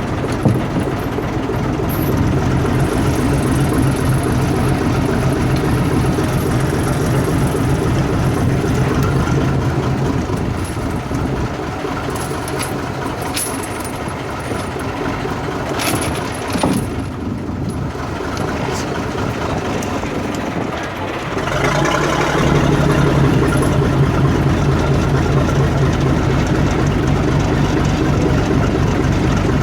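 An engine running steadily, easing off somewhat in the middle and running louder again from about twenty-two seconds in.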